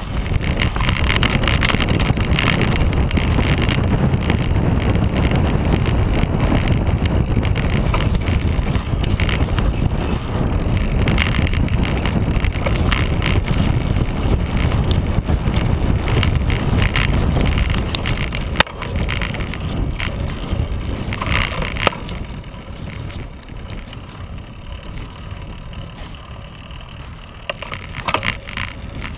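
Mountain bike riding down a snowy dirt trail: a steady rumble of wind on the microphone and tyres over the ground, with scattered rattles from bumps. There are sharp knocks a little past halfway and again a few seconds later. After that the rumble drops to a quieter level for the last part.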